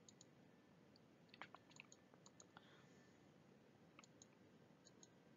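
Near silence: room tone with a few faint, scattered clicks, clustered about a second and a half in and again around four seconds in.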